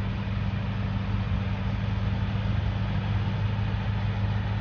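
Car engine idling, a steady low hum that doesn't change.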